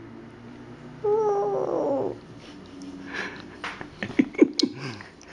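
A toddler imitating an elephant's trumpet: one high vocal call about a second long, falling slightly in pitch, followed by softer breathy and clicking mouth sounds.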